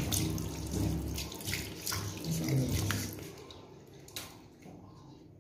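Tap water running and splashing into a sink as a face is washed, with irregular splashes; it eases off after about three and a half seconds.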